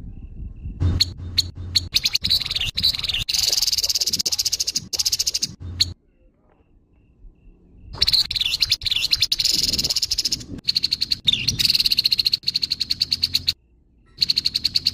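Grey-headed babbler giving harsh, rapid chattering calls: a long burst of quickly repeated rasping notes, a pause of about two seconds, another long burst, then a short one near the end.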